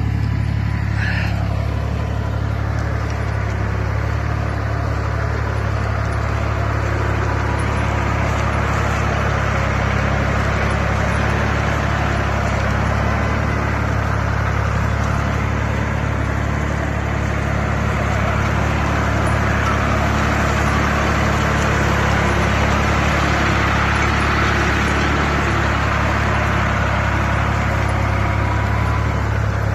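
SAME Minitauro 50 tractor's diesel engine running steadily under load as it pulls a plough through the ground.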